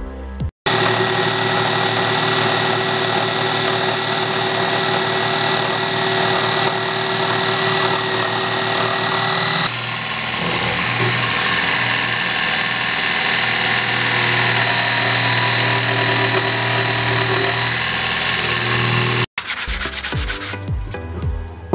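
Dremel electric scroll saw running and cutting thin plywood, a steady motor whine over the buzz of the reciprocating blade, with a slight change in tone about halfway through. Near the end it gives way to strokes of sandpaper rubbed by hand on the plywood.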